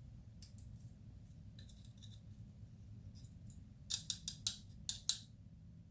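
Small internal parts of a 6.0 Powerstroke fuel injector being handled during reassembly: light ticks, then a quick run of about six sharp clicks about four seconds in.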